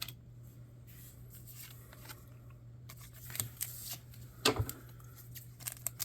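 Trading cards being handled and shuffled by hand: light rustling with scattered clicks and card snaps, the sharpest about four and a half seconds in, over a steady low hum.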